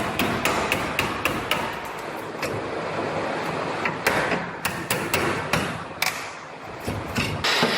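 Quick, uneven hammering on metal, about four or five sharp strikes a second over a steady tool noise, as tools work the damaged aluminum bedside off an F150.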